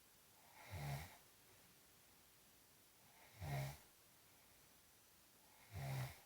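Snoring: three snores about two and a half seconds apart, each lasting under half a second, with quiet breathing between them.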